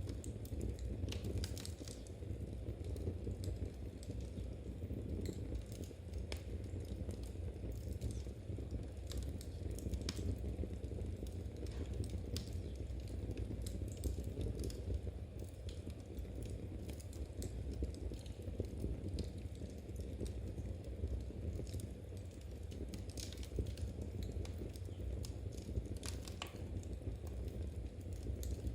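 Knitting needles clicking softly and irregularly, with a wood fire crackling now and then over a steady low rumble.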